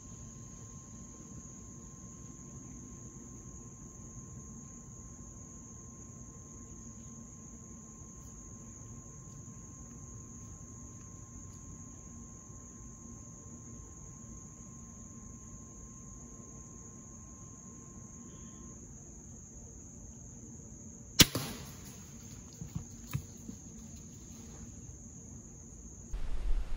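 A steady high-pitched insect chorus in woodland. About three-quarters of the way through comes one sharp, loud snap of a crossbow being fired, followed by a few fainter knocks. Near the end the insect sound cuts off and a louder rushing noise takes over.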